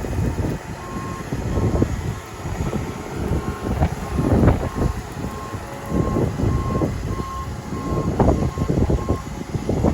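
A farm vehicle's back-up alarm beeping steadily, about one and a half beeps a second, over a loud, uneven low rumble with knocks.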